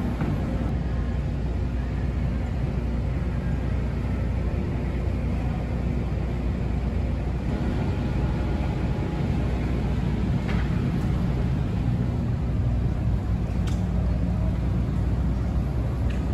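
Steady low drone of a car ferry's diesel engines heard on board, with a few faint clicks over it.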